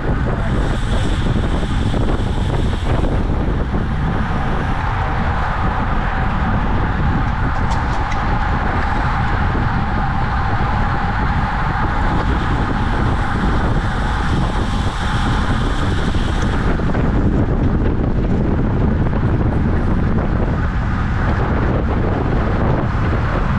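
Heavy wind noise on the microphone of a camera on a racing bicycle moving at speed. A higher hiss comes in briefly near the start and again for about four seconds in the middle.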